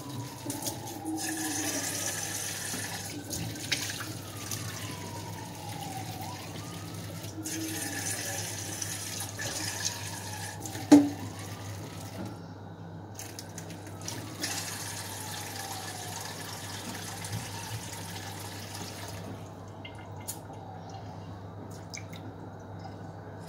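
Water running from a kitchen tap into a pot, turned on and off in several spells over a steady low hum. A single sharp knock about eleven seconds in.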